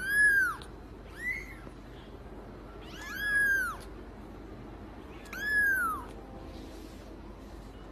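Small kitten meowing four times, high thin calls that each rise and then fall in pitch; the second is short and quieter.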